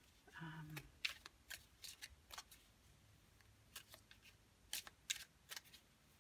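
Tarot cards being shuffled and handled by hand: a faint, irregular scatter of light snaps and taps as the cards slide and strike each other.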